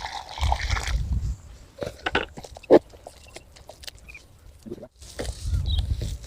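Thick wet mix of plaster of Paris, clay soil and water being stirred in a container: scattered wet clicks and knocks, with one sharp knock a little under three seconds in.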